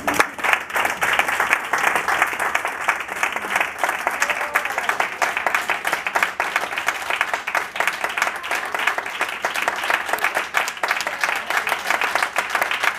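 Audience applause: many people clapping, starting suddenly and going on steadily.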